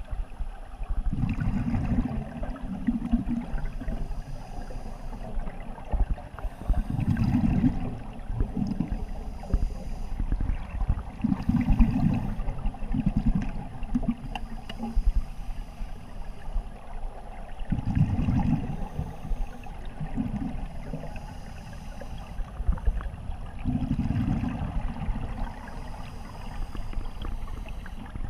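Open-circuit scuba breathing heard underwater: a regulator's exhaled bubbles gurgle out in low rumbles every few seconds, over a constant watery hiss.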